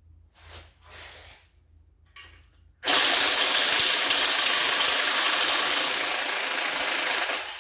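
A few faint handling noises, then a loud, steady rushing noise from a shop tool starts suddenly about three seconds in. It holds for several seconds, easing slightly and dropping off near the end.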